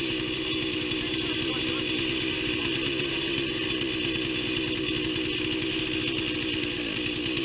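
A small engine running steadily at an even speed, with a fast, regular pulse.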